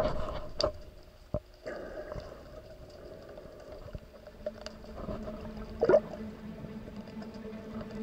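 Sea water heard through an underwater action camera: muffled water movement with scattered clicks and pops, one louder pop about six seconds in, and a faint steady hum coming in about halfway.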